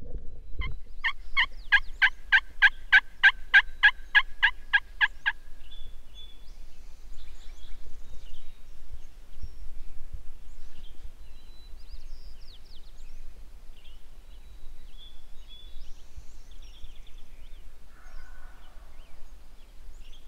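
A long series of about fifteen turkey yelps, evenly spaced at about four a second, running for some four seconds. After it come faint scattered songbird calls at dawn.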